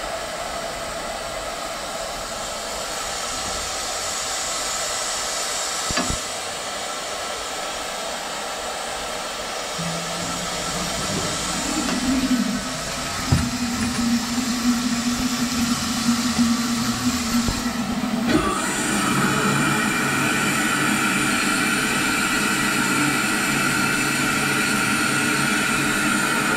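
Steady hiss of steam in a steam locomotive's cab, with faint whistling tones in it; about 18 seconds in it steps up louder and its pitch changes. Two light knocks stand out, about 6 and 13 seconds in.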